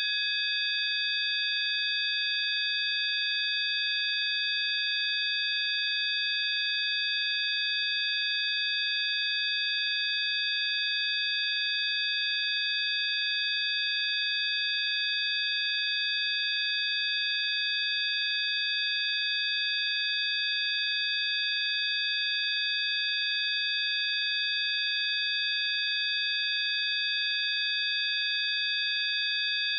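Several steady electronic sine tones, a 'healing frequency', sounding together as one high, unchanging drone.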